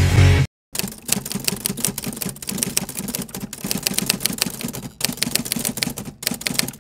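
Music cuts off about half a second in; after a brief silence, a typewriter sound effect begins, a rapid run of key clicks with short pauses, as text is typed out on screen.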